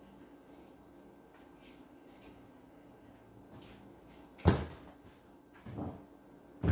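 Handling of wire and hand tools: quiet rustling, then a sharp knock about four and a half seconds in, and two lighter knocks near the end.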